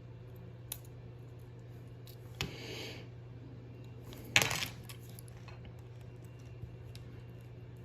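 Small metal watch parts and tools clicking and clinking on a watchmaker's bench while a Seiko 6139 chronograph movement is taken apart: a light click, a short rattle, then a louder sharp clink about halfway through.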